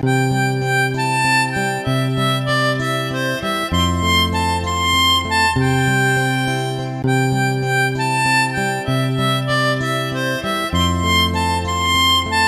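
Background music: a sustained reed-like melody over held bass notes that change about every two seconds.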